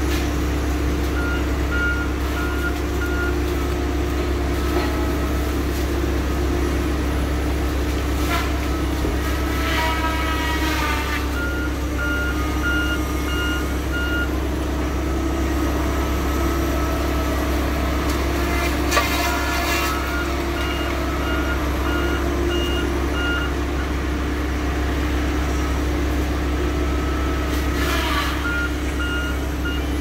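Heavy logging machine's diesel engine running steadily, with its backup alarm beeping in four separate spells as it reverses. A few short whining sweeps from the machine rise above the engine now and then.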